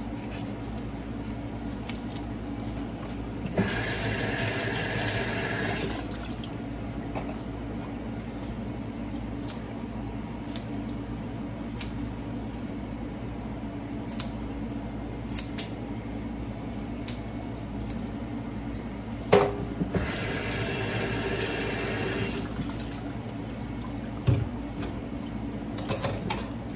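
Kitchen scissors snipping fresh herbs, heard as scattered faint clicks, while water runs twice in hissing spurts of about two seconds each, about three and a half seconds in and again about twenty seconds in. A few sharper knocks come later, over a steady low hum.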